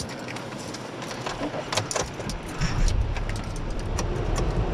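Car keys jangling and clicking, then the car's engine starts about halfway through and keeps running with a low rumble.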